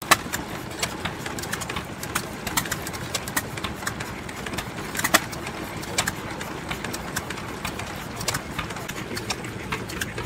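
Small vintage stationary engine running and belt-driving a miniature drum mixer: a steady low running sound with sharp beats a few times a second, unevenly spaced.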